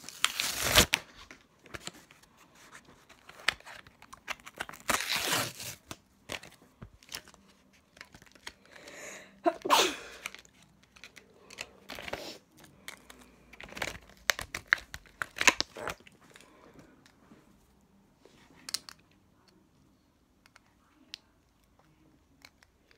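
A Beyblade's plastic-and-cardboard blister pack being torn open by hand, in irregular rips and crinkles of plastic. The loudest tears come about a second in and around 5, 10 and 15 seconds, and only scattered small clicks and rustles follow.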